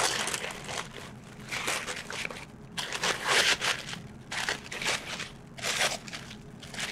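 Hands tearing open and crumpling the wrapping and tissue around a package, in a run of irregular crinkling bursts.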